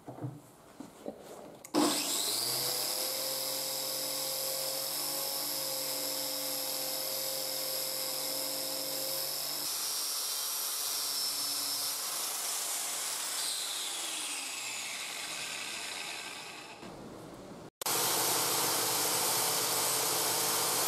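Angle grinder switched on about two seconds in and running at a steady high whine, then switched off and winding down, its pitch falling as it slows. Near the end it is running again, with a steady hiss.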